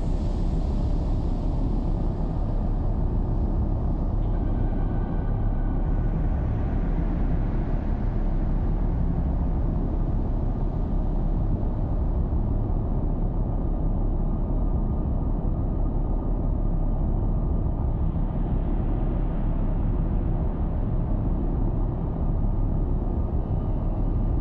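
A steady, deep rumbling drone from an ambient soundtrack. It holds an even level throughout, with no beat or distinct events.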